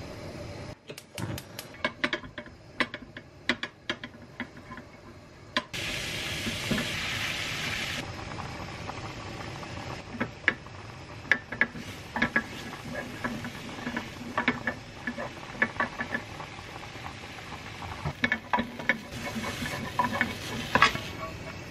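Chopsticks and a wooden spoon clicking and scraping against a square nonstick frying pan as greens are stir-fried. A burst of sizzling comes about six seconds in, as a splash of anchovy broth and fish sauce hits the hot pan, and there is more sizzling near the end.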